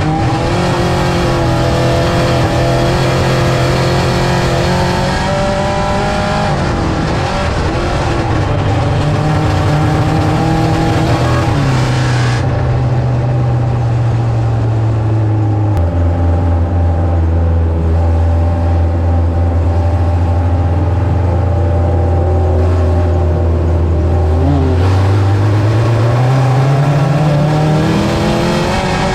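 Dirt-track race car's engine running hard on track, its note rising and falling with the throttle: it holds a high pitch, drops to a lower steady note about halfway through for several seconds, then climbs again near the end.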